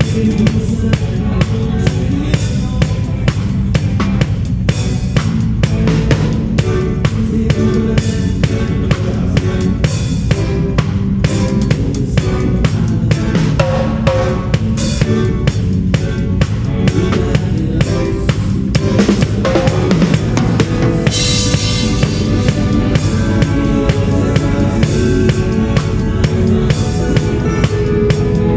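A band playing a song with a prominent rock drum kit keeping a steady beat, the drums loud over the other instruments.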